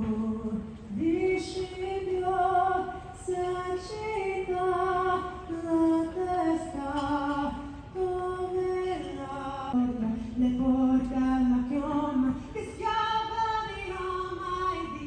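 A woman singing a slow melody solo, holding long notes that step up and down.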